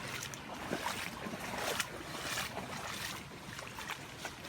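Floodwater running and splashing, a steady rush of water with small irregular splashes.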